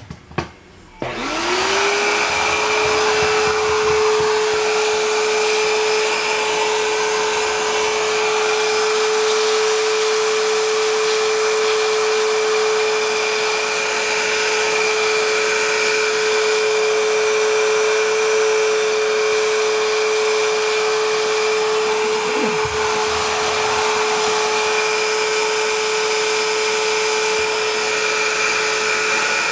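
Vacuum cleaner switched on after a couple of clicks. Its motor spins up within about a second to a steady high whine, then runs evenly. About 22 seconds in its pitch dips briefly and comes back.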